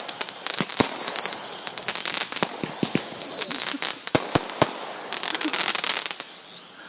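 Consumer fireworks going off in a quick, irregular run of bangs and crackles, with a high whistle about a second in and another around three seconds. The volley thins out and dies down near the end.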